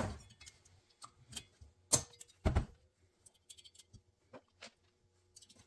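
Sharp metal clicks and clinks of valve springs, retainer and collets being handled and fitted on a cylinder head valve. The two loudest knocks come close together about two seconds in, followed by lighter scattered ticks.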